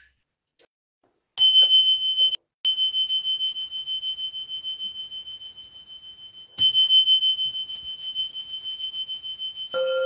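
A high-pitched bell-like sound-healing instrument is struck twice, about four seconds apart. Each strike rings one clear high tone that pulses as it fades, and the ring cuts out briefly once. Near the end a deeper singing bowl begins to sound under it.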